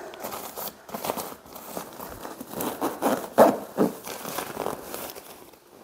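Nylon tent carrying bag being zipped shut in short, uneven pulls, with the synthetic fabric of the packed tent rustling and crinkling as it is pressed down into the bag. The loudest rustle comes about three and a half seconds in.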